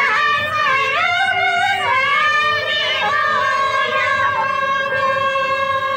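Santali folk song: women singing to a harmonium. The voices slide between notes for the first couple of seconds, then settle into long held notes over the harmonium.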